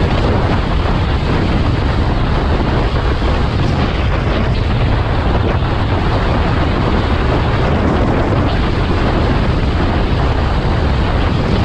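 Wind buffeting the microphone of a helmet-mounted camera on an electric scooter ridden at speed: a steady, loud rush, heaviest in the low end.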